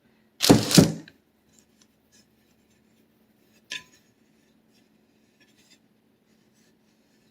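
A kitchen utensil scraping twice in quick succession against a dish, then a single light clink about three seconds later, over a faint steady hum.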